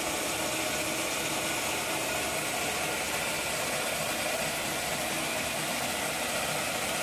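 Motor of a homemade rope-twisting machine running steadily, twisting strips cut from PET bottles into clothesline rope; an even, unchanging hum with no pauses.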